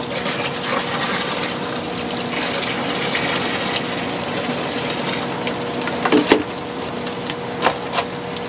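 Steady running water and pump hum of aquarium filtration, with a few short plastic knocks from cups and fish bags being handled near the end.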